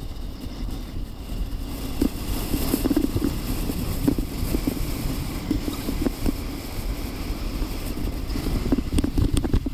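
Natural-track luge runners scraping and rumbling over packed snow at speed, with wind rushing over the microphone and scattered short knocks as the sled rides bumps in the track.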